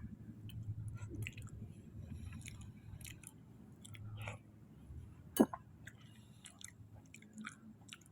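A person chewing soft, wet chunks of sweet potato from kolak, with irregular small wet mouth clicks. There is a single sharp, louder click a little past five seconds in.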